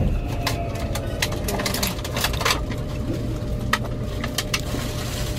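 Running noise inside a moving express train: a steady low rumble with irregular sharp clicks from the wheels and track.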